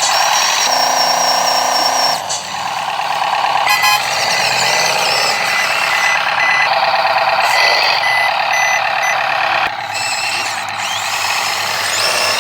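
Truck sounds with repeated reversing beeps, dense and steady throughout.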